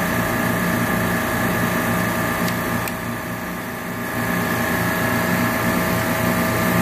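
Steady hum and whine of refrigeration rack compressors running, with two faint clicks a little over two seconds in.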